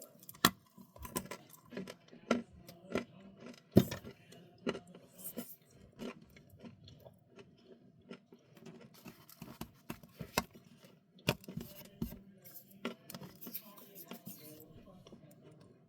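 Close-miked chewing of crunchy snacks: irregular sharp crunches, with the loudest bites about half a second and about four seconds in and a quieter stretch of chewing in the middle.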